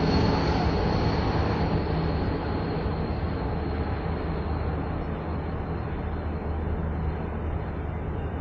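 Cable car running gear and machinery running: a steady mechanical rumble with a low hum that slowly quietens, and a faint high whine that fades out.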